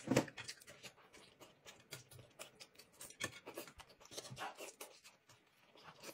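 Quiet, scattered clicks and scrapes of chopsticks on a porcelain plate as dumplings are picked up and dragged through chili sauce.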